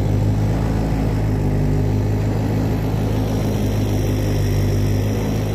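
Boat's outboard motor running at a steady cruising speed, a constant low drone that does not change in pitch.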